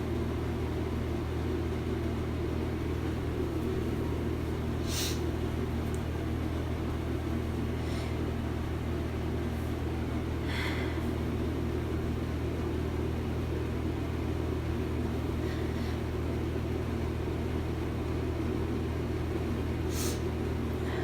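A person with a head cold sniffling: about five short, separate sniffs spread through the stretch, over a steady low hum.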